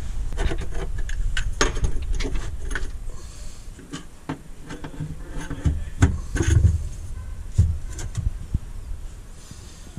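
Scattered metallic clicks and knocks of tools and hardware being handled in a car's trunk during a power steering pump install. A low rumble runs under the first few seconds, then fades.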